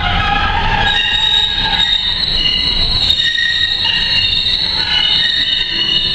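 Wheels of Boston's Green Line light-rail trolleys squealing against the rails: several high, overlapping tones that come and go and shift in pitch, over a low rumble that weakens after about three seconds.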